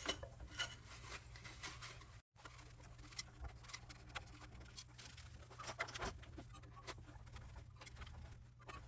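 Faint, scattered clicks and light taps from small parts and tools being handled during the cleaning and re-lubing of the projector's worm gears, over a low steady hum. The sound drops out completely for a moment about two seconds in.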